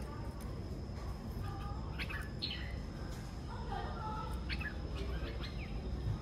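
Red-whiskered bulbuls calling: short chirps and quick sweeping whistled notes, scattered several times across a few seconds.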